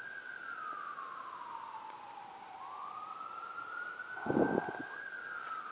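Police car siren wailing, faint, its pitch sliding slowly down and back up in about one rise-and-fall every five seconds. A brief scuffing noise comes about four seconds in.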